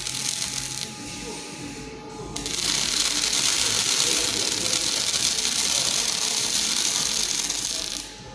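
Robot MIG/MAG welding arc from a Megmeet Artsen Plus power source, crackling and hissing steadily. It strikes about two and a half seconds in and cuts off abruptly near the end.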